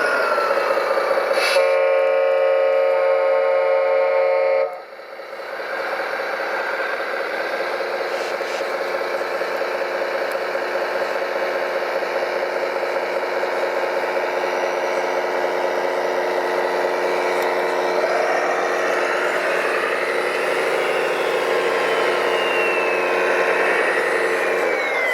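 Radio-controlled model truck: a horn sounds steadily for about three seconds and cuts off, followed by a continuous motor drone with whines gliding up and down in pitch.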